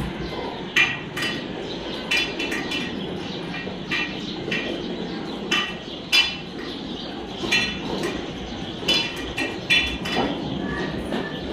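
Metal dog feeding bowls clinking as several dogs eat from them: more than a dozen sharp, ringing clinks at irregular intervals over a steady low background noise.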